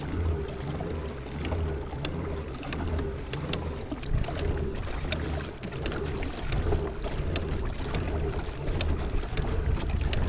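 Wind rumbling on the microphone out on the water, with many small sharp ticks and splashes scattered throughout, typical of a kayak on open water.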